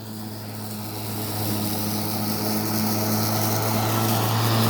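Greenworks electric lawn mower running while cutting grass: a steady motor hum with a spinning-blade whoosh, growing gradually louder.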